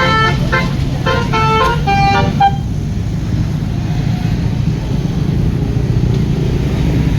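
Indonesian tour bus's telolet horn, a multi-tone musical air horn, playing a quick tune of changing notes that ends about two and a half seconds in. After it, a steady low engine and traffic rumble.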